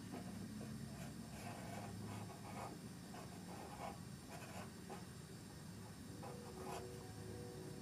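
Pencil scratching on drawing paper in a series of short, irregular sketching strokes, faint.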